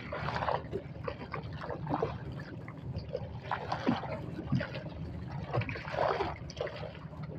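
Water lapping and splashing irregularly against a boat's hull and the concrete pilings it is moored beside.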